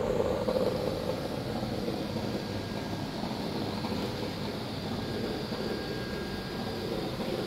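A steady mechanical drone, like a fan or engine heard from a distance, with no distinct events. It is a little stronger in the first second.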